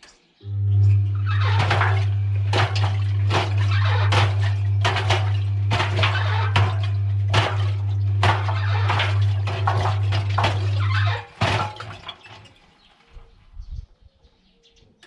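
Washing machine drum turning with a steady motor hum while balloons with cubes inside them tumble, giving repeated irregular knocks and rattles against the drum. The drum stops about eleven seconds in, leaving a few faint clicks.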